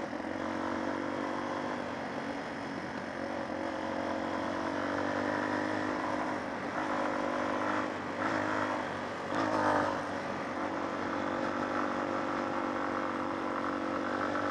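Old motorcycle engine running at steady revs while being ridden, with a couple of brief unsteady moments about eight and nine and a half seconds in.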